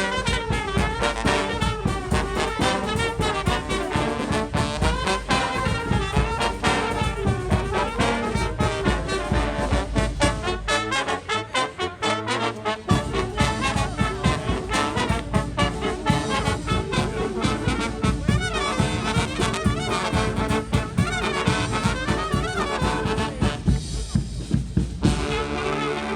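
Live marching band playing a brass tune, trumpets and trombones over a steady beat of sharp drum hits. The low bass drops out for about two seconds near the middle, then comes back.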